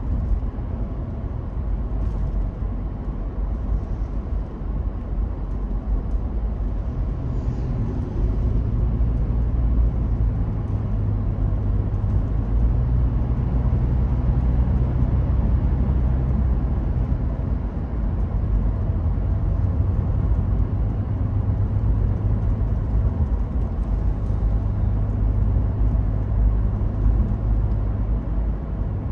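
Car being driven: a steady low rumble of engine and road noise, a little louder from about eight seconds in.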